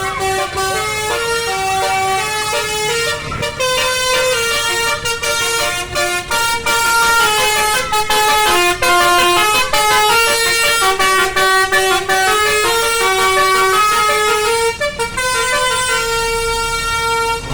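A bus's Basuri telolet horn playing a long multi-note melody, a viral tune, with the notes stepping up and down one after another.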